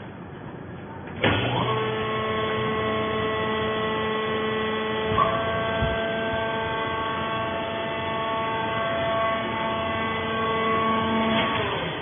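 Hydraulic power unit of a vertical coconut-fiber baler starting abruptly about a second in and running with a steady whine as the ram raises the pressing platen, with a brief knock about five seconds in, then dying away just before the end.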